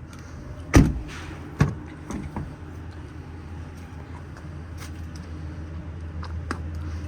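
Two loud thumps a little under a second apart, about a second in, followed by a few lighter knocks, over a steady low hum.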